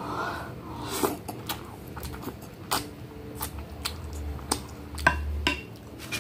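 Mouth eating sounds of spicy instant noodles: a slurp at the start, then chewing with many sharp, wet clicks and smacks.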